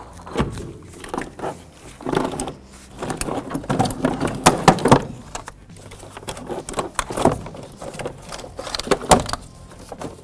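A car battery bumping and scraping as it is lowered into its plastic tray and shoved into place: a run of irregular knocks and clunks, loudest about four to five seconds in.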